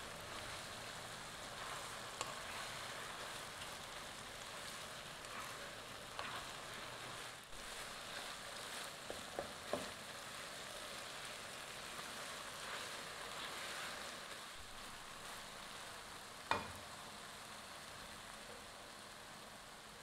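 Minced chicken sizzling in oil in a coated frying pan as it is stirred with a slotted spatula: a steady hiss with occasional clicks of the spatula against the pan. The sharpest click comes later on.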